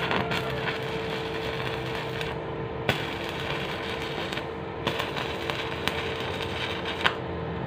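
Stick (MMA) arc welding with a Daiden MMA 120 inverter welder: the electrode's arc crackling steadily, with a few sharp pops. The welder is working normally again, welding smoothly after its burnt fusible resistor was replaced.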